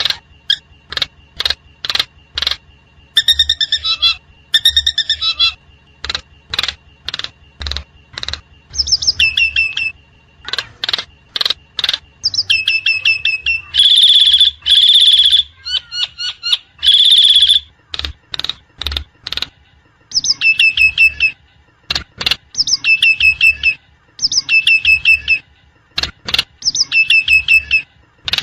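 Common mynas calling: rapid runs of sharp, repeated clicks and chips mixed with short whistled, warbling phrases, with a few louder, harsh calls about halfway through.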